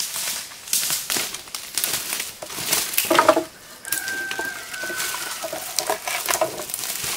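Chickens calling, a short call about three seconds in and a longer held call soon after, over a steady run of sharp crackling and snapping noises.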